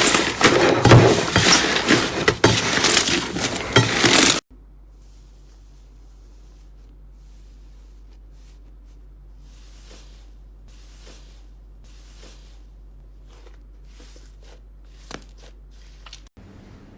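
Crunchy slime being squeezed and worked by hand, a loud, dense crackling. About four seconds in it cuts to a much quieter clip of slime being pressed, with soft scattered pops and clicks over a low steady hum.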